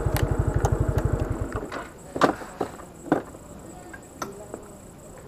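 A motor scooter's single-cylinder engine idling with a steady low putter, then cutting out about a second and a half in as it is switched off. A few sharp clicks and knocks follow.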